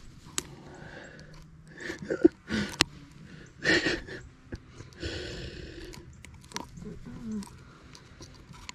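Handling noises from a hooked fish being held down and unhooked in a boat: scattered clicks, knocks and brief rustling bursts.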